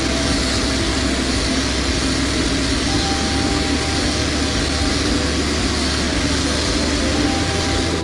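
Abrasive blasting in a sandblast cabinet: compressed air and grit hiss steadily from the blast gun onto a metal stove case, stopping at the end.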